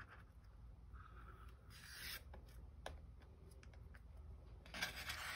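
Faint rubbing and scraping of macramé string and fingers sliding over a cardboard board, with brief scrapes about two seconds in and again near the end.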